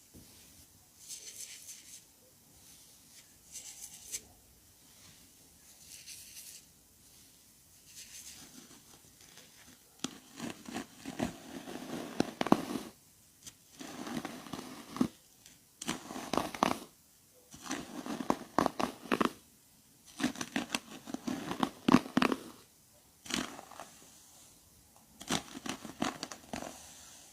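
Salon ASMR handling of hair close to the microphone. The first ten seconds hold soft, airy swishes about every two and a half seconds. After that come louder crackling, crinkling strokes in runs of a second or two, with short pauses between them.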